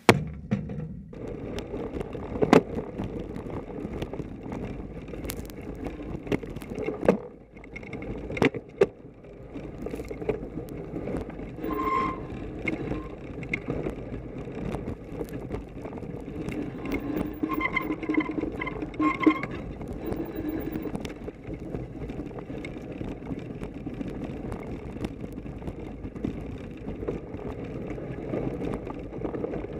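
Mountain bike ridden over snow, heard from an action camera mounted on the front fork: the knobby front tyre rolls through snow under a steady rumble, and the bike knocks and rattles over bumps, mostly in the first third. Brief high squeals come twice around the middle.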